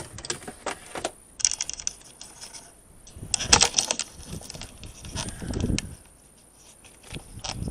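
Light metallic clinking and clicking of hand tools being handled and set down, in several short clusters, the loudest about three and a half seconds in, with softer rustling between them.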